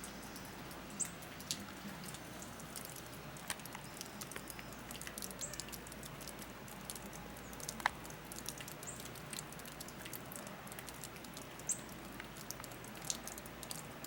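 Heavy snow falling and pattering, a dense scatter of tiny irregular ticks as flakes or pellets land, with a faint high chirp every few seconds.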